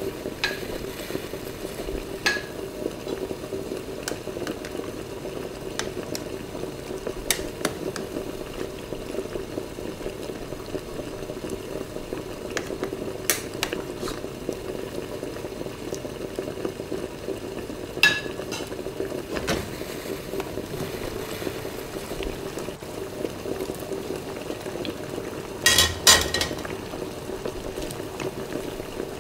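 Creamy chicken stew with potatoes and hotdog slices bubbling steadily in a frying pan as the sauce reduces at a simmer. A spatula clicks against the pan now and then, with a quick pair of clicks near the end.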